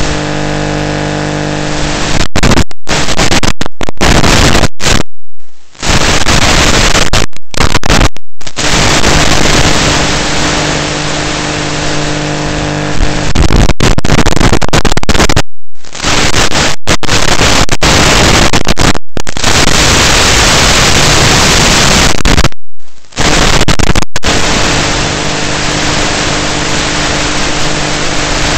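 Loud, steady static hiss from an analog FPV video receiver's audio channel, with a faint steady hum under it. It cuts out abruptly to silence for a moment several times.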